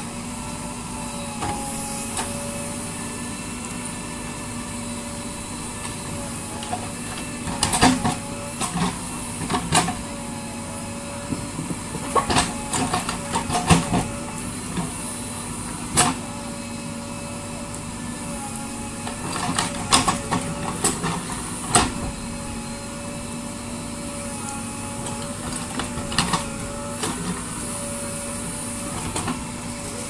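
JCB 3DX backhoe loader's diesel engine running under digging load, a steady drone with a slightly wavering hydraulic whine. Sharp metallic knocks and clanks from the backhoe arm and bucket come in bursts as it cuts and scrapes into the soil.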